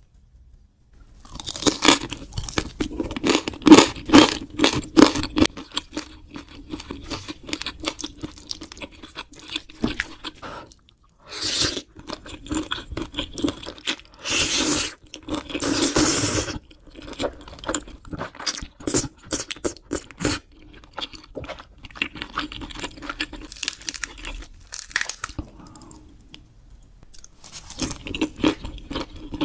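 Close-miked eating sounds: wet chewing of grilled lobster tail and cream pasta, full of crackly clicks. Several long slurps of noodles come around the middle.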